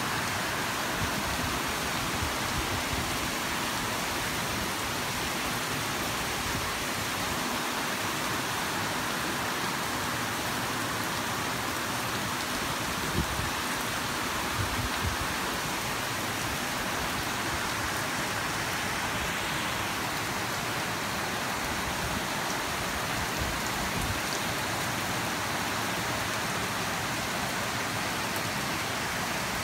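Rain falling steadily, an even hiss, with a few louder knocks about halfway through.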